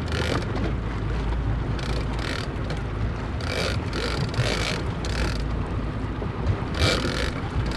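A boat at sea: a steady low engine hum under wind buffeting the microphone, with several short hissing bursts.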